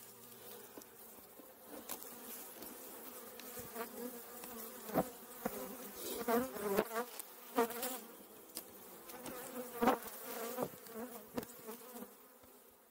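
Honeybees from an open hive buzzing steadily, with single bees swooping close now and then, so the pitch rises and falls. A few sharp knocks from the frames being handled.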